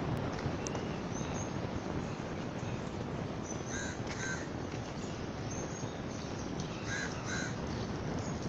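A crow cawing in two pairs of short caws, the pairs about three seconds apart, over a steady background hiss.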